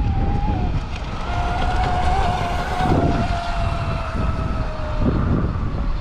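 Brushless electric motor of an RC speedboat (Rocket 3660 1800kv on 6S) whining at speed, a steady high whine that sags slightly in pitch and fades near the end. Heavy wind noise on the microphone runs under it.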